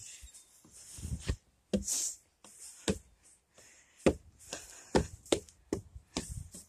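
Handling noise from a phone held close to the microphone: short, irregular knocks and thumps with some scuffing rustle, coming about twice a second in the second half.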